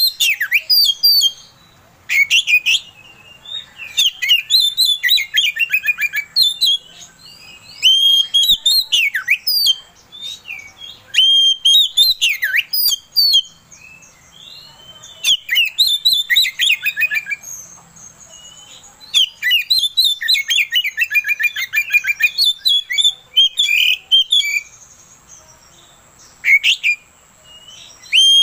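Oriental magpie-robin singing a loud, varied song of whistles and fast chattering notes, in phrases of one to three seconds broken by short pauses, about ten phrases in all.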